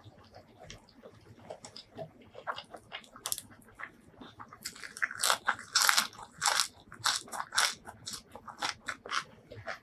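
Close-miked crunching and chewing of crisp raw vegetables. Faint small clicks at first, then from about halfway in sharp crisp crunches come about twice a second.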